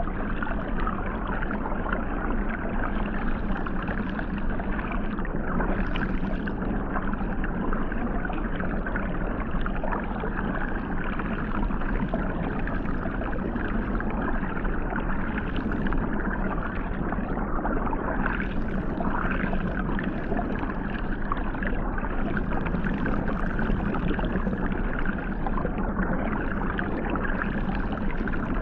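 Hot tub water jets heard underwater: a steady, muffled churning rush with a low hum from the pump.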